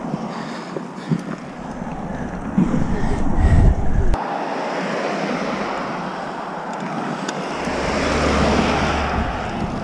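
Wind buffeting the microphone of a camera on a moving mountain bike, with rumble from the tyres on a gravel and dirt trail. The sound changes abruptly about four seconds in.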